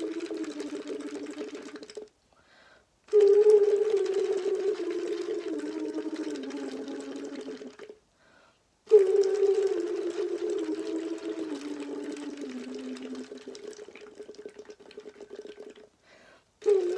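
A voice humming through a straw into a cup of water for a vocal warm-up, the sung tone bubbling as it goes. Each long phrase steps down in pitch like a descending scale and fades, with short breaks for breath about two seconds in and eight seconds in, and a new phrase starting near the end.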